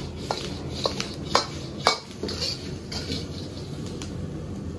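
Metal ladle clanking and scraping against a stainless steel wok while a stir-fry of long beans is tossed, with four sharp clanks about half a second apart in the first two seconds and lighter scrapes after.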